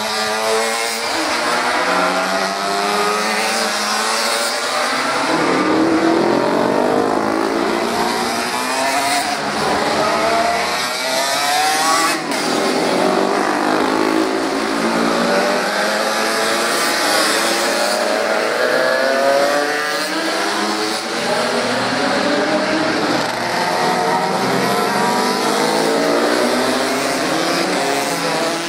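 Racing motorcycles passing one after another through a corner on a street circuit. The engines rev up and down with gear changes as the bikes accelerate out of the turn, the sound of several overlapping with no break.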